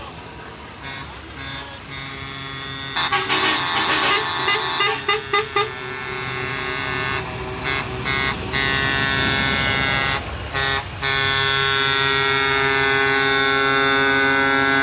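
Truck air horns blowing a chord of several steady tones: a quick run of short blasts starting about three seconds in, then longer blasts with a few breaks, and a long held blast through the last few seconds, over the low running of passing truck engines.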